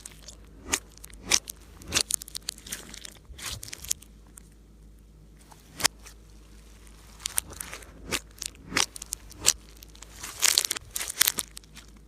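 Slime being kneaded and pressed by hand, giving irregular sharp crunchy pops and clicks, with a quick run of crackles near the end.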